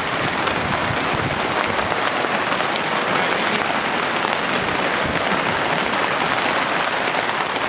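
Heavy rain falling steadily during a thunderstorm.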